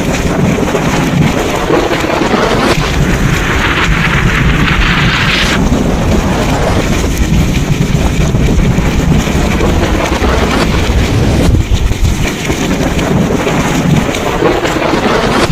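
Thunderstorm: heavy rain and wind with deep, continuous rumbling thunder. A brighter hiss of rain swells a few seconds in and stops abruptly at about five and a half seconds.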